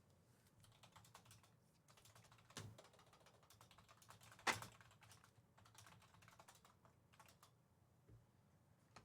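Faint typing on a computer keyboard: quick runs of key clicks, with one louder click about halfway through.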